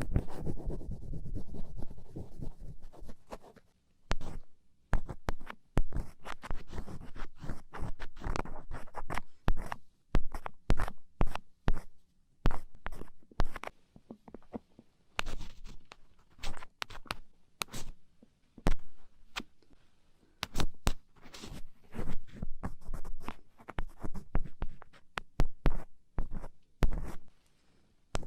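Close-up scratching and crackling of an ear pick working earwax in an ear canal: quick irregular scrapes and clicks in short runs, with brief pauses between them.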